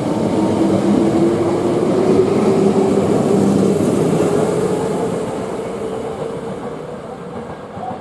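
Electric train running past, a steady rumble with a humming motor tone that rises slightly in pitch, loudest a couple of seconds in and then fading away.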